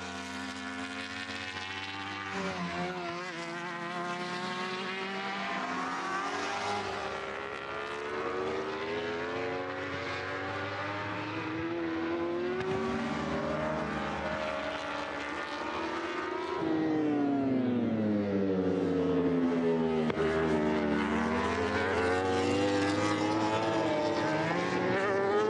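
Racing superbike engines at full speed, several at once, their pitch repeatedly rising and falling with throttle and gear changes as a pack of bikes passes. The sound gets louder about two-thirds of the way in.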